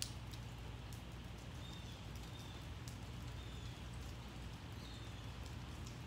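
Light rain with scattered drips ticking, over a steady low hum, while a bird gives short, faint high chirps several times.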